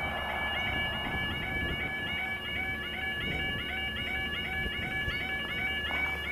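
Level crossing's electronic audible warning sounding: a rapidly repeating warbling alarm tone that tells road users a train is approaching and the barriers are coming down.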